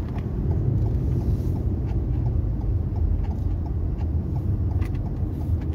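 A car being driven, heard from inside the cabin: steady engine and road rumble, with a light, regular ticking about four times a second.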